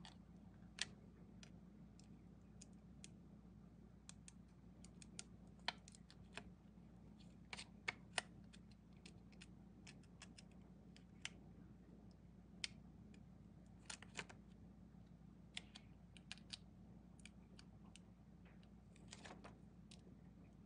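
Faint, irregular small clicks and taps of fingertips and fingernails pressing sticky-backed holographic film onto a cured resin cat-paw piece, over a low steady hum.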